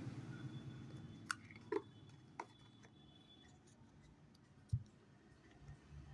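Faint scattered clicks and taps, about half a dozen spread over several seconds, with a soft low thump a little after the middle: a cardboard medicine carton and syrup bottle being handled.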